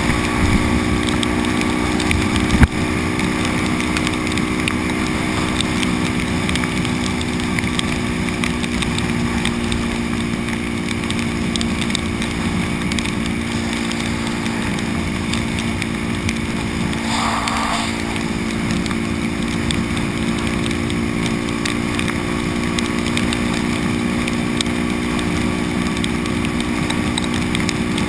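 Supermoto motorcycle engine running steadily at highway cruising speed, over an even wind and wet-road noise. A single sharp knock comes about two and a half seconds in, and a brief higher-pitched sound comes at about seventeen seconds.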